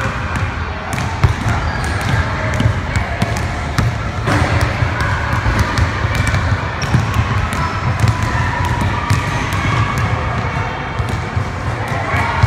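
Basketballs being dribbled on a hardwood gym floor: irregular, quick bounces one after another over a steady low hum.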